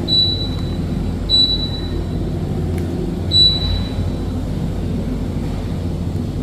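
TCL TAC-05CSA half-ton air conditioner running with a steady low hum, while its control unit gives three short high beeps: near the start, about a second in, and about three seconds in. These are the kind of beeps the unit gives when it acknowledges a button press.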